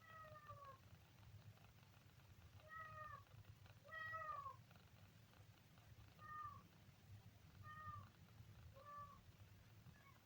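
Kitten meowing faintly: six short, high calls a second or two apart, each dropping a little in pitch, the loudest about four seconds in. A steady low hum lies under them.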